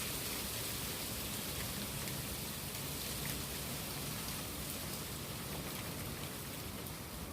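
Rain falling steadily on surfaces, with scattered drops ticking through the even hiss.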